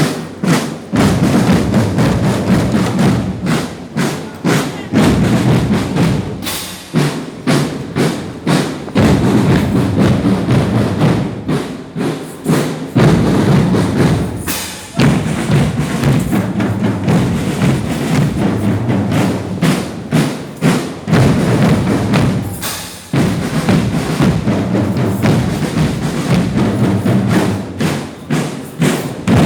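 Percussion-heavy music: drums and wood-block-like strikes beating a steady rhythm.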